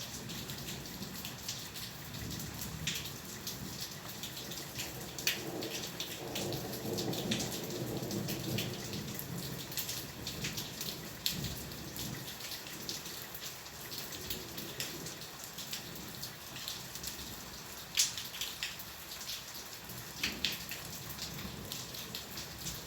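Steady rain with close drops striking in sharp ticks, the loudest about eighteen seconds in. A low rumble of distant thunder swells and fades in the first half.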